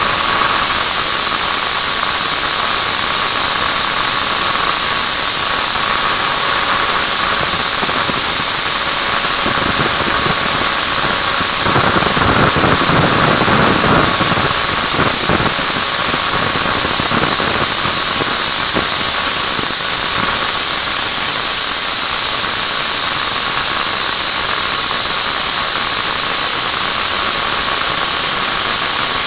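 Electric angle grinder (MODERN brand) running with a steady high whine, a flat metal ring held against its disc. A coarser grinding noise swells in the middle.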